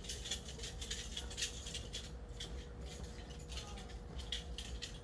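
A bunch of keys jingling: quick irregular metallic clinks that keep on throughout.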